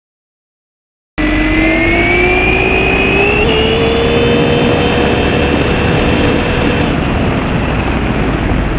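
After about a second of dead silence, a fast electric RC car's motor whines as it speeds up, rising in pitch for a few seconds and then holding steady, over a constant rush of tyre and road noise. The whine fades near the end.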